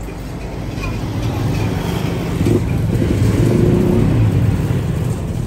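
A motor vehicle's engine running on the road, getting steadily louder as it comes closer and loudest around the middle, then easing a little.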